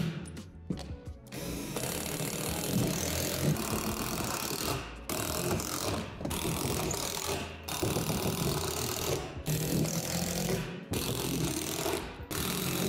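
Cordless 12-volt impact driver driving self-tapping screws through the deck panels into the metal frame underneath, rattling in runs of a second or two with short breaks between screws.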